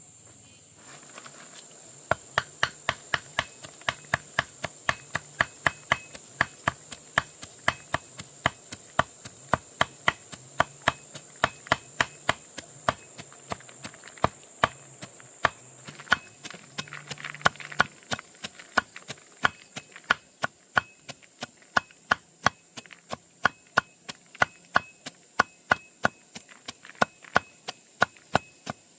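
Steady chopping, about three sharp blows a second, that begins about two seconds in, over a continuous high-pitched insect drone.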